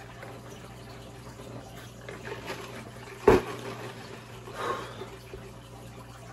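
A single sharp knock about three seconds in, over faint steady hiss and hum, with a softer rustling sound a little before five seconds.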